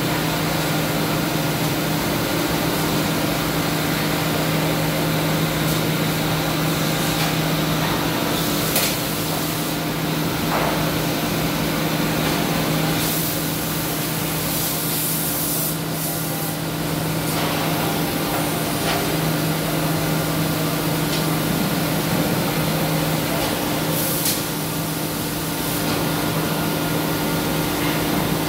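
CNC wood-turning lathe running on a turned wooden leg: a steady two-note motor hum under a constant hiss, with a few brief louder hissing surges.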